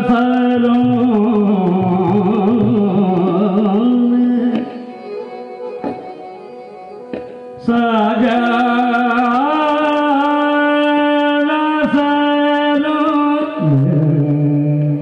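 Live Indian vocal music: a man singing long, held notes with wavering ornaments over harmonium, with tabla. It drops quieter for about three seconds in the middle, then comes back in full.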